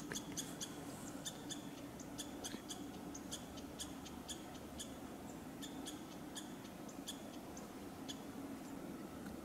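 Quiet outdoor background with a scatter of faint, sharp high-pitched ticks or chips, a few a second at irregular intervals.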